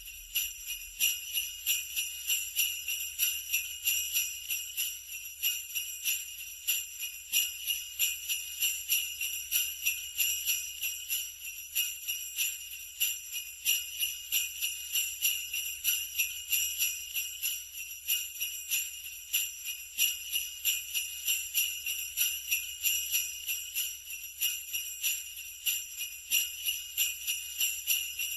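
Sleigh bells shaken in a steady, even rhythm: a continuous bright metallic jingling of many small bells.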